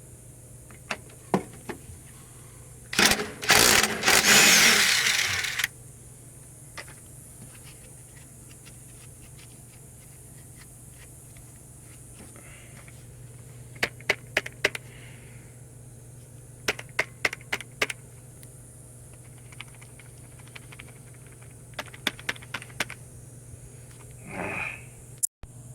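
Mechanic working on bolts in a bus bulkhead: a power tool runs for about two and a half seconds a few seconds in, then small clusters of sharp metal clicks and clinks from hand tools, over a steady low hum.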